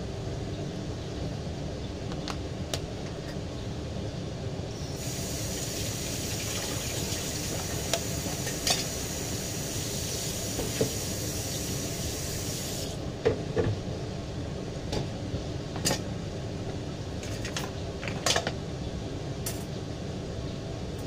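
Kitchen work: dishes and utensils clinking against a counter several times over a steady mechanical hum. A steady hiss runs from about five seconds in until about thirteen seconds.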